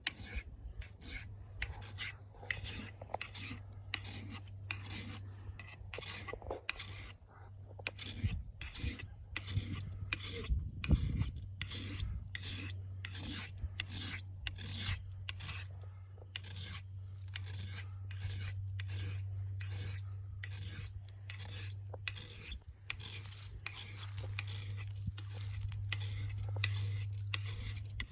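Hand file rasping across a steel axe bit in firm, even push strokes, about two a second, sharpening the dull edge. A steady low hum runs underneath.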